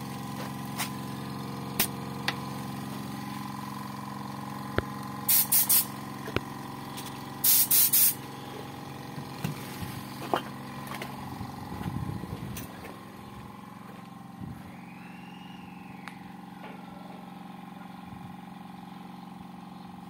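Stanley Fatmax 6 L silent air compressor running with a steady hum while short bursts of compressed-air hiss come from the tire inflator at the skid-steer tire valve: three quick hisses about five seconds in, then a longer double hiss about two seconds later. The hum is quieter in the second half.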